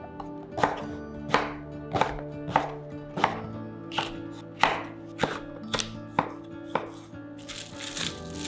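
Kitchen knife chopping green bell pepper on a wooden cutting board: about eleven even strokes, one roughly every half-second or more. Near the end, a rustle of cling film being peeled off a piece of raw chicken breast.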